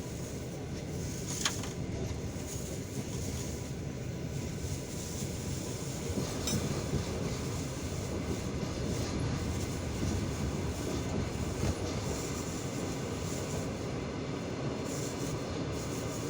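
Passenger train carriage rolling along the track: a steady low rumble from the wheels on the rails, with a few sharp knocks as the wheels pass over rail joints.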